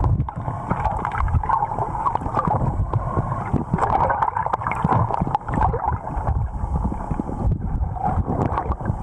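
Muffled, irregular water rushing and gurgling heard through an underwater camera housing as a freediver swims.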